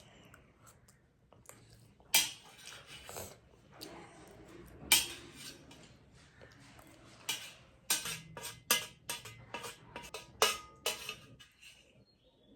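Cutlery clinking and scraping against a bowl in sharp knocks: two loud ones a few seconds apart, then a quick run of clinks over about three seconds, some with a brief ring.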